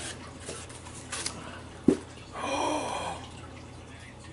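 A small cardboard knife box being handled and opened: one sharp click about two seconds in, then a brief scraping rustle lasting under a second.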